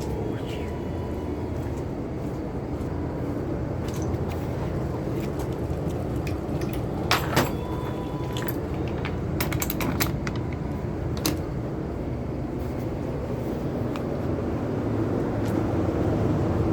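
A vehicle engine running steadily with a low drone. Sharp clicks and rattles come in a cluster around the middle.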